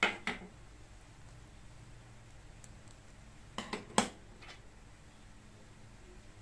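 Sharp, short knocks from hard objects: two right at the start, then three in quick succession about three and a half to four seconds in, the last the loudest.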